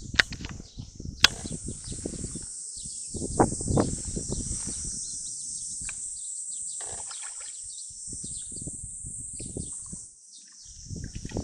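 Outdoor ambience: gusts of wind buffeting the microphone come and go over a steady high hiss, with a couple of sharp clicks in the first second or so.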